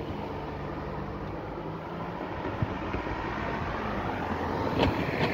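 Cars driving over a level crossing: engines running, with tyre noise growing louder as an SUV approaches, and two sharp knocks near the end.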